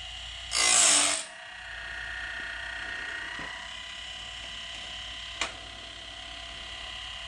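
Woodland Mills Grindlux 4000 sawmill blade sharpener running off a 12-volt battery: its grinding wheel motor whines steadily while the advancer moves a Lenox bandsaw blade along. About half a second in, the stone grinds into a tooth gullet with a short harsh rasp lasting under a second, and there is a single sharp click near the end.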